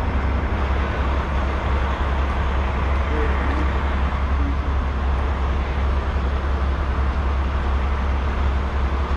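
Steady low engine rumble under a broad, even hiss that holds at one level throughout, with no distinct knocks or changes.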